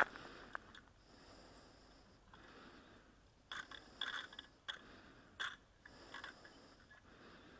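Faint breathing and sniffing close to the microphone, in soft breaths about a second long, with scattered sharp clicks and crackles, a cluster of them about halfway through.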